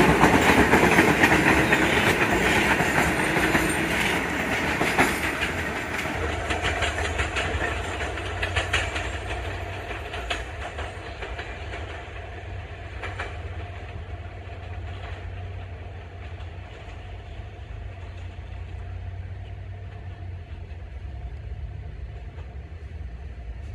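New York City subway train running past and pulling away, its wheels clicking over rail joints. The sound fades over about ten seconds to a steady low rumble.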